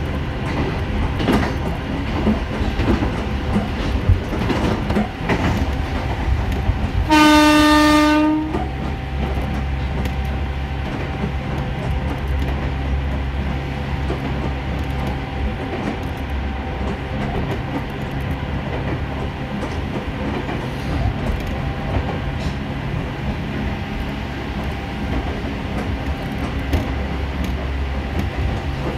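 Ohmi Railway electric train running along the line with a steady low rumble and some rail-joint clicks, and one steady horn blast of about a second and a half, a few seconds in.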